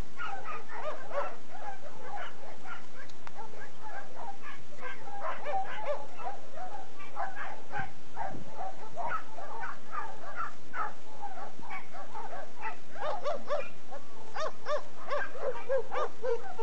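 Many dogs barking and yelping at once, short overlapping barks and yips without a pause, growing busier near the end.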